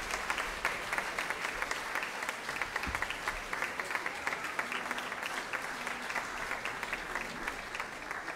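Applause from a hall audience and performers on stage: many hands clapping in a steady, dense patter.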